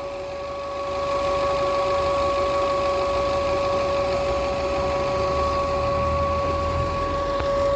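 Car engine running with a steady high-pitched hum (a whine) over its low rumble, a little louder from about a second in. The owner takes the hum for a defect.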